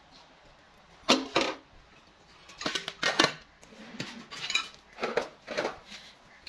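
Metal cookware clattering: a metal lid set on a metal pot and knocked against it, with several short clinks in four bunches, the loudest about a second in and about three seconds in.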